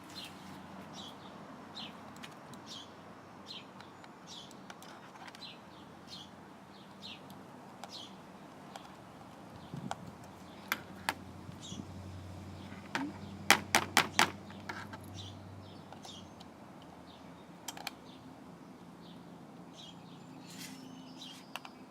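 A bird chirping repeatedly, one short high note about every second, with a cluster of sharp clicks and knocks about halfway through.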